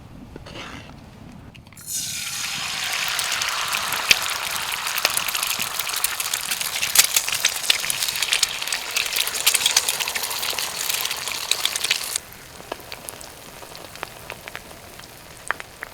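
Eggs frying in a hot pan: a loud sizzle full of crackling pops that starts suddenly about two seconds in and cuts off abruptly about ten seconds later. Fainter scattered ticks and patter come before and after it.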